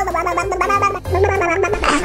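Background music: a sung voice over bass notes.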